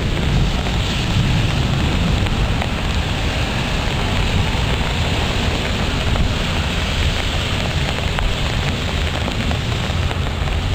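Rain pouring and wind blowing in a thunderstorm, with a steady low rumble of wind buffeting the microphone.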